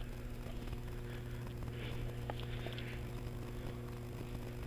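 Faint footsteps and rustling of clothing and gear as an airsoft player creeps along a dirt path through grass, with a few light clicks, over a steady low hum.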